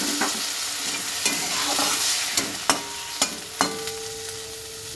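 Water just poured into hot oil sizzling around potatoes and chillies in a metal kadai, the hiss slowly dying down. Several sharp knocks of a utensil against the pan cut through it, the later ones leaving a brief ringing note.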